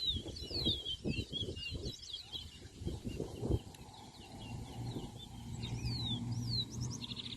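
Towa-towa (chestnut-bellied seed finch) singing: a run of quick, high whistled notes, many sliding downward, with a fast trill near the end. A steady low hum comes in about four seconds in.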